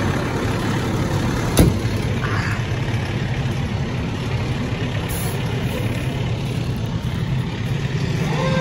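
Fire truck's diesel engine idling with a steady low rumble, with a single sharp knock about a second and a half in. Near the end a siren starts rising.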